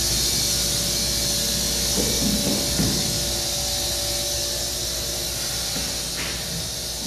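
Steady hiss over a low hum, with a few faint held tones. Soft rustles come about two and three seconds in.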